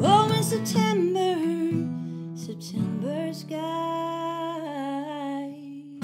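Live solo acoustic guitar with a woman's wordless singing over it, gliding between notes early on and then holding one long, wavering note in the second half.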